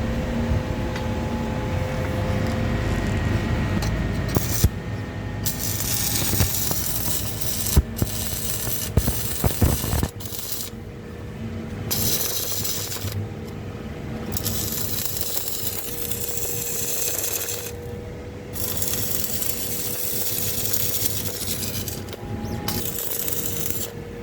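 Stick welding with an inverter welding machine: the arc crackles and hisses, breaking off and restarting about five times, over a steady faint whine.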